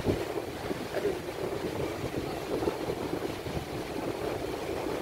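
Surf washing onto a sandy beach, with wind gusting on the microphone.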